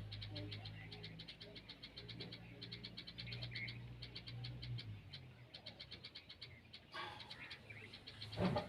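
A fast, even chorus of high chirps, about ten a second, over a low steady hum that cuts out about five seconds in. A short, louder noise burst comes near the end.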